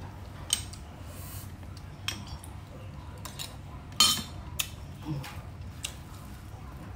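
Eating at a table: a spoon clicking against bowls, with a few short, sharp clicks, the loudest about four seconds in.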